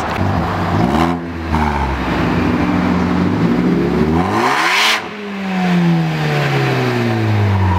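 Ford Focus ST's 2.0-litre turbocharged four-cylinder, fitted with a modified exhaust, revved to redline: a short blip, then a long climb to the top with a rush of air noise at the peak, then the revs falling steadily after the throttle is released.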